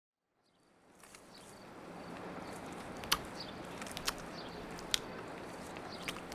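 Outdoor ambience fading in from silence: a steady hiss with faint high chirps and four sharp clicks about a second apart.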